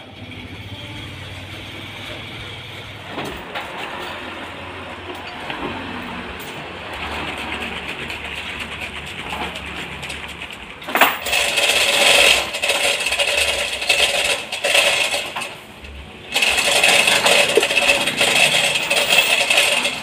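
Bandsaw sawmill running, then about eleven seconds in the blade bites into a large trembesi (rain tree) log with a loud, steady sawing noise; it drops back for about a second near fifteen seconds, then cuts loudly again.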